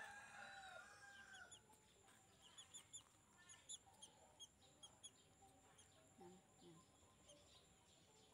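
A rooster crowing, its drawn-out call trailing off about a second and a half in. Faint, quick, high chirps of small birds follow.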